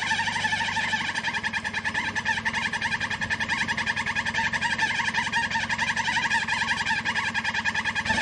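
Insects chirping in a fast, steady pulse of several beats a second at an even, fairly high pitch, with little engine rumble beneath.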